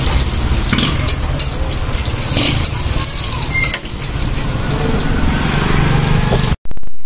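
Minced-meat patties and egg sizzling in oil on a large flat iron griddle over a gas burner, with a metal spatula scraping and tapping on the griddle a few times. The sound drops out abruptly about six and a half seconds in.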